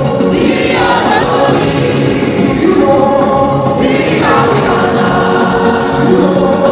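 Many voices singing a gospel worship song together, loud and even, with a new sung phrase beginning about every three and a half seconds.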